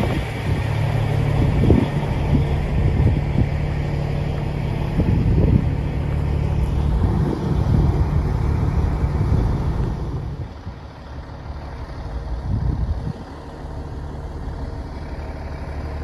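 Semi-truck diesel engine idling with a steady low hum. The hum drops quieter about ten seconds in and returns a few seconds later.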